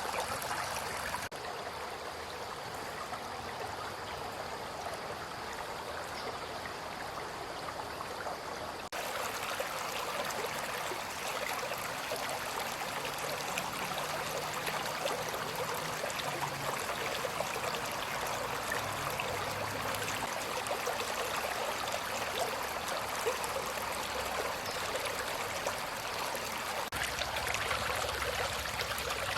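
Babbling brook: steady rushing, trickling water that changes abruptly in tone about a second in, after about nine seconds, and again near the end.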